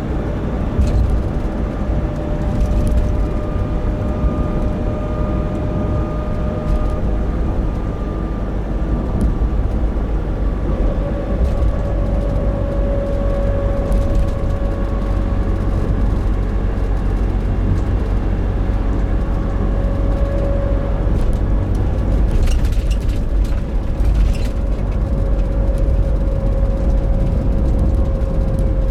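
Nissan NV350 Caravan driving at light steady throttle, a low road rumble with a steady droning 'kōn' hum over it that fades and comes back. The van's owner wonders whether this drone is a differential noise.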